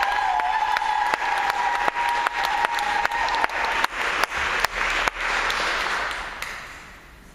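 Audience applauding after a stage introduction, with two long steady whistling tones held over the clapping for the first half. The applause thins to a few separate claps and dies away near the end.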